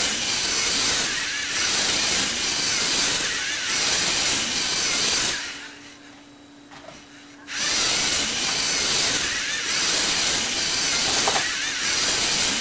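Motor-driven Lego Technic gear train and scissor lift running with a rough, high whir. It runs for about five seconds, stops for about two, then starts again about seven and a half seconds in.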